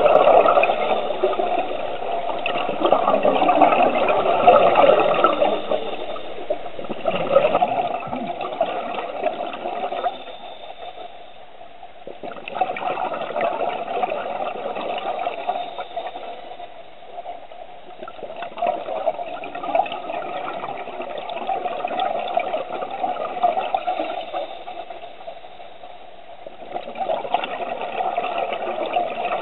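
Scuba regulator exhaust heard underwater: exhaled bubbles rushing out in swells of several seconds at a time, each followed by a quieter gap while the diver breathes in.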